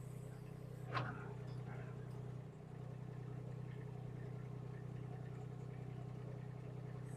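Mini excavator engine running steadily, with a single sharp knock about a second in.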